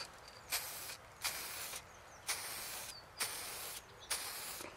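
Aerosol spray can of matt black paint hissing in five short spurts, each about half a second, as a coat goes onto the brake levers.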